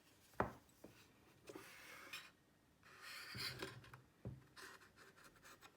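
Mac mini's internal chassis and logic board being slid out of its case: a sharp knock about half a second in, then faint scraping and rubbing of the parts against the case, with a few light taps.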